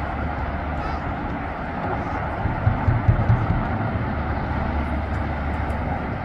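Outdoor ambience: a steady low rumble with a cluster of heavier thumps about three seconds in, over a faint murmur of distant voices.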